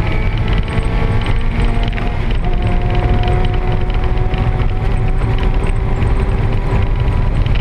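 Inline-four engine and drivetrain of a stripped NA Mazda Miata race car at track speed, heard from inside the bare cabin, with mechanical rattling over the engine. A steady tone holds for a few seconds in the middle.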